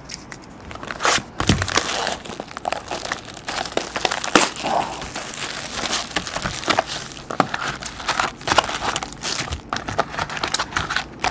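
Plastic shrink-wrap being torn off a hobby box of trading cards and crumpled, a continuous run of sharp crinkles and crackles. Near the end the foil card packs inside rustle as they are handled.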